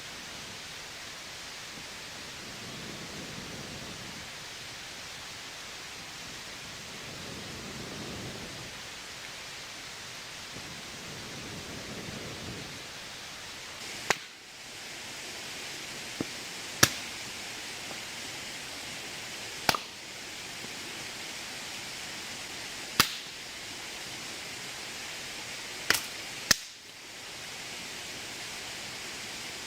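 Steady heavy rain falling, an even hiss. In the second half, about seven sharp single pops come at irregular intervals, louder than the rain.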